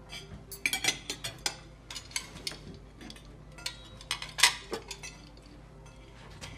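Cutlery and plates clinking and knocking at a table, in scattered short strikes, with a quick run of clinks about a second in and the loudest clink about four and a half seconds in.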